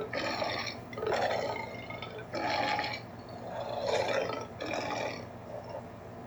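Custom Yonggary monster vocal sound effect: a series of five short roar-like bursts, about one a second.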